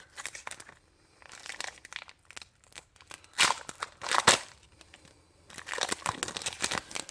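A trading card pack's wrapper crinkling and tearing as it is opened by hand, in irregular bursts with the loudest about four seconds in.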